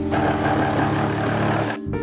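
Cordless drill running steadily under load, then stopping shortly before two seconds in, with background music underneath.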